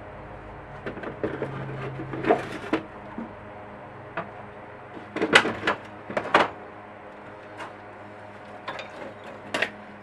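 Cast iron grinder parts being handled in and out of a plastic tub and set down on a metal tray: scattered knocks and clinks in several clusters, the loudest just past halfway, over a steady low hum.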